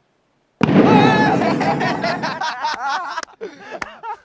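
An overinflated basketball, pumped to 50 psi, bursts with a sudden loud bang on hitting concrete about half a second in, and at once people yell and cheer for about two seconds. A few sharp clicks follow near the end.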